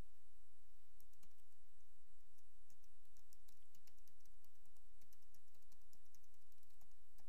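Computer keyboard being typed on: a quick, irregular run of key clicks.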